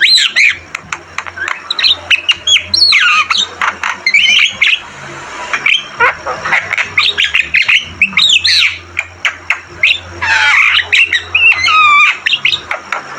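Javan myna singing in a fast, energetic run: a dense mix of harsh squawks, chatter and short whistled notes that swoop up and down, with a brief lull about halfway through.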